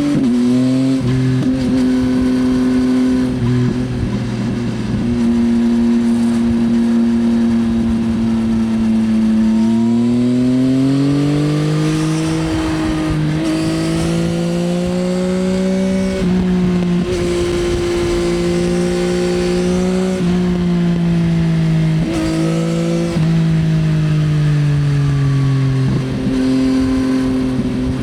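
2024 Yamaha XSR900's 890 cc inline-three engine through an Akrapovič Racing Line exhaust while riding. It holds steady revs for the first several seconds, climbs in pitch on the throttle, then rises and falls with several quick drops in pitch at gear changes.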